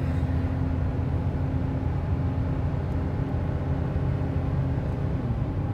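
A GMC Canyon's four-cylinder engine runs steadily at high revs inside the cab, pulling a heavy trailer up to highway speed. A steady drone sits over road noise.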